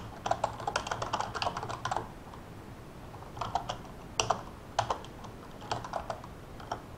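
Typing on a computer keyboard: a quick run of keystrokes, a pause of about a second and a half, then a few short runs and single key presses.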